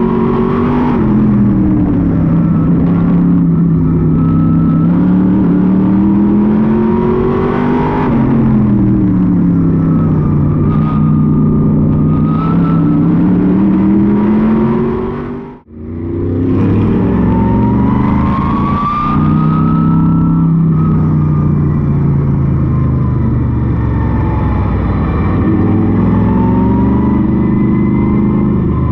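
Modified race car's V8 engine heard from inside the cockpit, its pitch climbing on the straights and dropping into the turns lap after lap. A thin higher whine rises and falls with it. The sound cuts out briefly just past halfway, then picks up again at speed.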